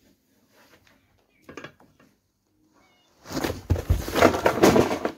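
A person falling off a soccer ball onto a rug-covered floor, starting about three seconds in: heavy thumps and a loud clatter of things crashing down, lasting about two seconds.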